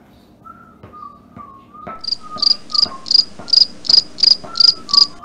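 Cricket chirping, about three high chirps a second, starting abruptly about two seconds in and stopping suddenly near the end, over a faint whistled tune.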